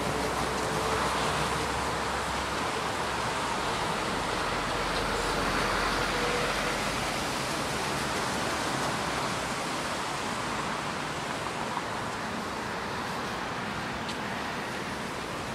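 A steady rushing noise, with a faint low hum that dies away about two and a half seconds in, then slowly easing a little.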